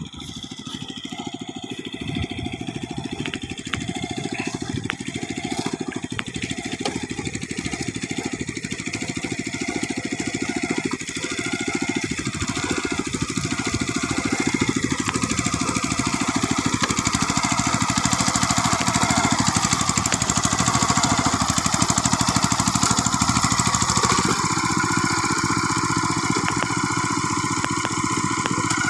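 ISEKI PC4 rice transplanter's small engine running steadily, growing louder over the first twenty seconds, with a change in its note about three-quarters of the way through.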